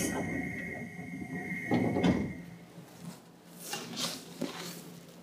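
Inside a Seibu 2000 series commuter train car: a hiss of air dies away at the start, then a heavy thud about two seconds in and a few lighter knocks.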